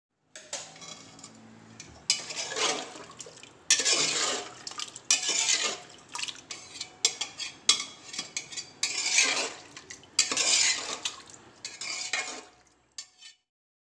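Long steel ladle stirring rice, mutton and water in an aluminium pressure cooker, clattering and scraping against the pot in repeated strokes that stop shortly before the end.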